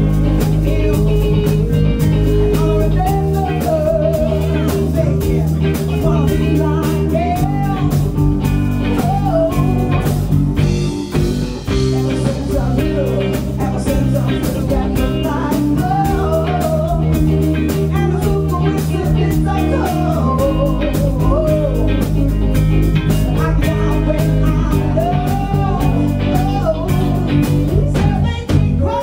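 A live band playing a song: a woman singing lead over two electric guitars and a drum kit, with a steady beat.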